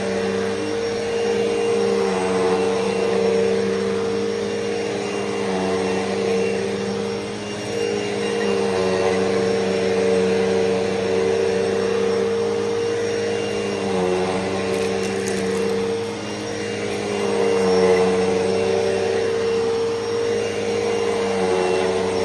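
Hoover Elite Rewind upright vacuum cleaner running steadily while vacuuming, its motor hum dipping slightly in pitch every few seconds.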